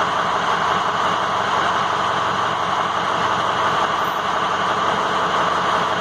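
A steady machine drone with a hiss and a faint low hum, running evenly without change.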